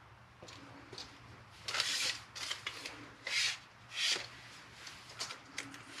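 Tape measure handled against a drywall wall: short scratchy scrapes and light clicks, three louder scrapes about two, three and a half and four seconds in.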